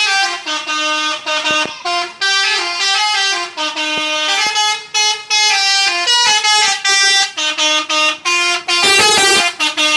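Bus 'telolet' musical air horn on a Garuda Mas bus playing a sholawat melody: a quick run of short horn notes stepping up and down in pitch, with a brief noisy blast near the end.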